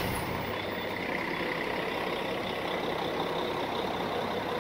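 Steady street traffic noise, with a vehicle engine running.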